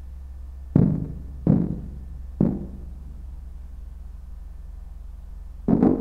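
Four deep, ringing thuds, three of them less than a second apart in the first half and a fourth near the end, over a steady low hum.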